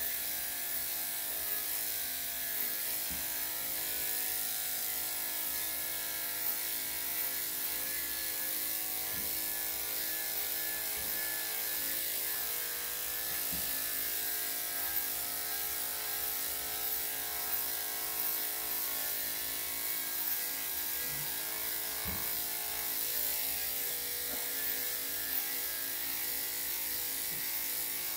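Electric dog clippers with a #3 3/4 blade running steadily, buzzing as they cut through a dog's coat.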